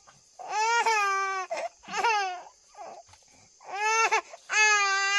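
A young child crying in high, drawn-out wails, four cries with short breaths between them.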